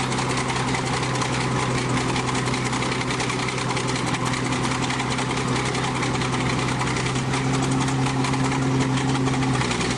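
A heavy machine's engine running steadily with a strong low hum, its note shifting a little just before the end.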